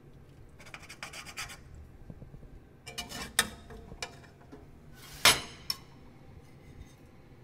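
Cutlery scraping and clinking on a plate as the fish is served: a scrape about a second in, a few clicks near three seconds, and one sharp clink, the loudest, a little past five seconds.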